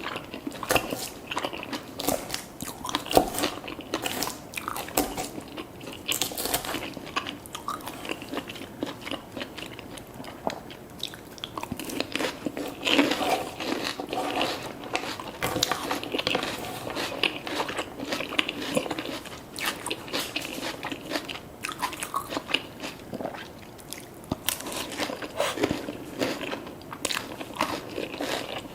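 A person biting and chewing crunchy food close to the microphone: irregular crunches and crackles with mouth sounds.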